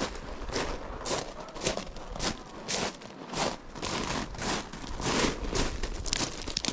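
Footsteps crunching on a loose gravel and sand wash at a steady walking pace, about two steps a second.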